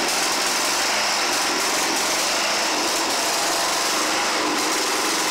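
Small gasoline engine of a Simplicity Sunrunner garden tractor running steadily, freshly started on new fuel.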